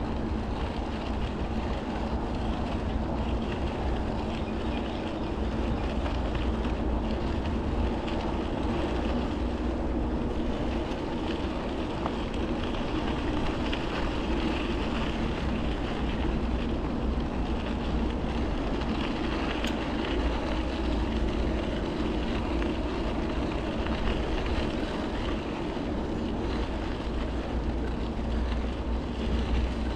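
Bicycle ride on a trail: the steady rolling noise of the tyres on the trail surface, with wind rumbling on the microphone.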